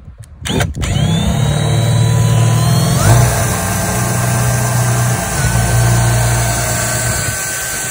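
Milwaukee cordless drill spinning up about a second in and boring into a boat's fiberglass deck, which has a wooden core. The motor whine rises in pitch about three seconds in and then runs steadily.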